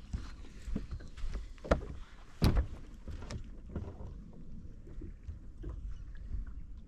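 Scattered knocks and handling noise in a small fishing boat over a low rumble, with two sharper knocks about a second and a half and two and a half seconds in.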